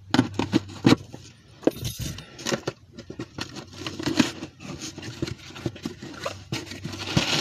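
A package being pulled open by hand: an irregular run of crinkling, rustling and scraping of its wrapping.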